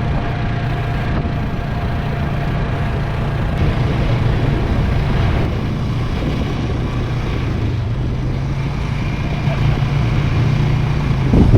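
A vehicle engine running steadily, with a constant low hum and road or wind rumble.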